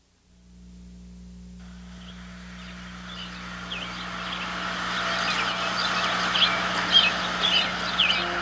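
Birds calling over and over outdoors, the calls and the background noise fading in gradually over a steady low hum.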